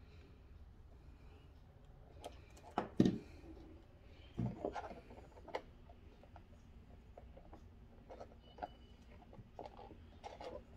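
Handling noises from hot-glue crafting: a few short knocks and scrapes as rhinestone trim is pressed onto a flexible plastic shade and a hot glue gun is put down on the table, the loudest knocks about three seconds in and again around five seconds.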